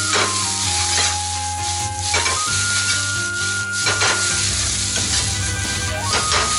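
Egg fried rice sizzling in a wok over a gas flame while a steel ladle stirs and scrapes it, with a sharp ladle stroke against the wok about every two seconds.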